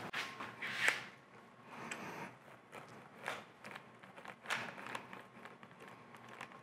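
Faint handling noises from fingers working a lathe power compound's gear cartridge in its slide: light scattered clicks and rustles, a few sharper taps about a second in and again near three and four and a half seconds.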